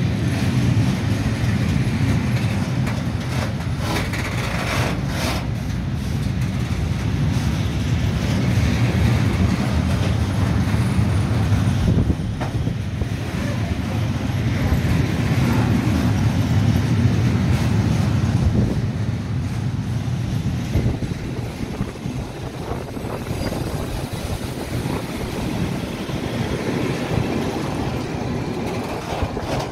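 Freight train of open coal wagons rolling past: a steady low rumble of wagon wheels on the rails, with a few higher clanks a few seconds in. It grows a little quieter in the last third as the last wagons pass.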